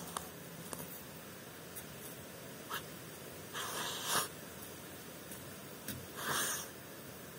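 A half-year-old puppy sniffing as she searches: two short breathy puffs a couple of seconds apart, with a few faint clicks between.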